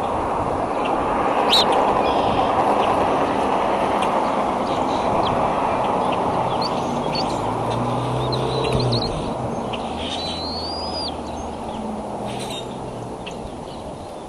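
Scattered short, high bird chirps over a steady rushing background, with a longer whistled call that rises and falls about ten seconds in.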